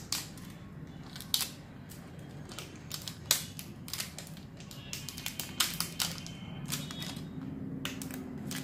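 Scattered sharp clicks and light plastic handling noises from a new smartphone being turned over and fiddled with in the hands, its protective film still on, over a low steady background hum.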